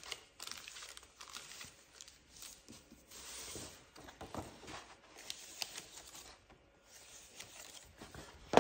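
Paper cupcake liners and a sheet of paper rustling and crinkling as they are pressed down and handled, with a sharp tap right at the end.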